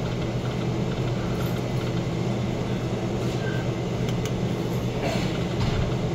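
Steady low mechanical hum with a constant drone, unchanging throughout.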